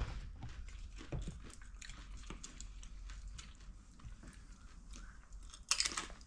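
Faint chewing with small clicks and crunches of someone eating, likely a bite of the homemade cake, and a brief louder noise near the end.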